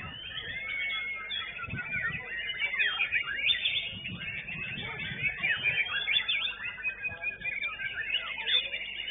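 White-rumped shamas (murai batu) singing: a dense, unbroken stream of quick, varied whistles, trills and sliding notes.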